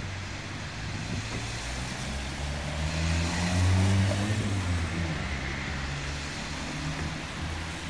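A motor vehicle's engine passing close by on a wet street, growing louder to a peak about halfway through and then fading, over a steady hiss of traffic and tyres on the wet road.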